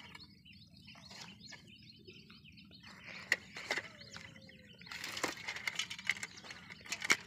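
Birds chirping in the background over scattered rustling and light knocks from fish being handled on a plastic tarp. The rustling and knocks get busier about five seconds in.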